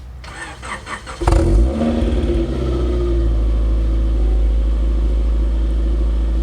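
A 1997 Honda Prelude's H22A four-cylinder engine is started: the starter cranks briefly, the engine catches about a second in with a brief flare, then settles into a steady idle.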